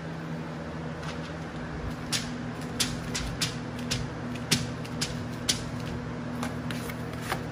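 Bare hands pressing and smoothing cork wallcovering onto a wall, making irregular light clicks and crackles from about two seconds in, over a steady background hum.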